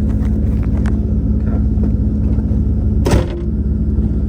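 Corvette's 5.7-litre V8 engine running steadily, with a brief sharp clunk about three seconds in.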